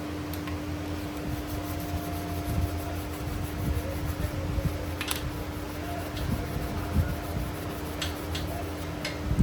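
A workshop machine's electric motor running steadily with a constant hum, with a few sharp clicks about halfway through and again near the end.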